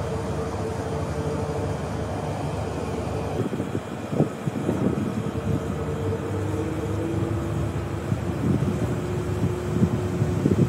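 Subway train running: a steady whine over a low rumble, with irregular knocks and clatter starting about three and a half seconds in.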